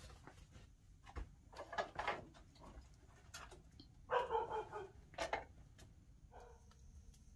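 Several short animal cries, the loudest and longest about four seconds in, with light crackling clicks from a small wood campfire between them.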